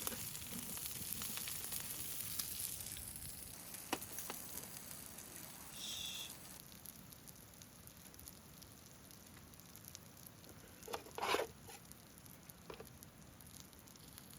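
Meat sizzling as it cooks, loudest in the first six seconds and then fainter. A brief knock comes about eleven seconds in.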